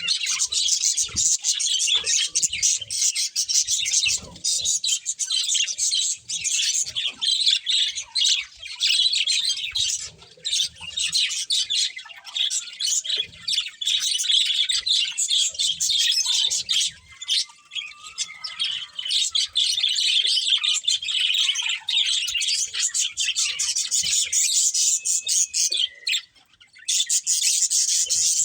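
Budgerigars (budgies) chirping and chattering without a break, many quick high chirps overlapping, with a short pause near the end.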